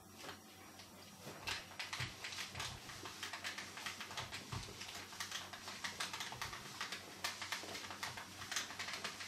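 Paper and cardboard crackling and rustling in quick, irregular clicks, starting about a second and a half in, as a clothes iron is worked over a paper-covered cardboard backcard to flatten it.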